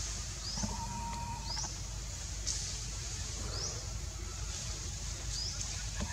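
A bird calling with short, high, rising chirps, repeated about once a second, over a steady low rumble.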